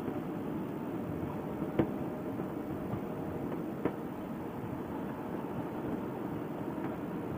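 Steady riding noise from a motorcycle on the move: wind and engine in an even rush, with two short ticks, one about two seconds in and one about four seconds in.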